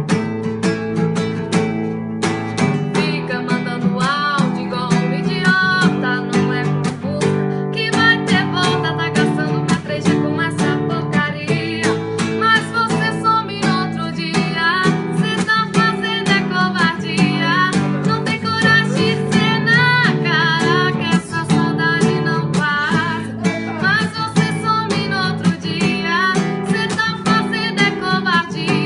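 Acoustic guitar strumming chords, with a woman singing over it from about three seconds in.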